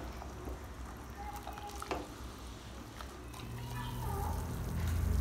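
A few light knocks and clicks of a wooden ladle and kitchen utensils against a steel pot, over a steady low kitchen hum.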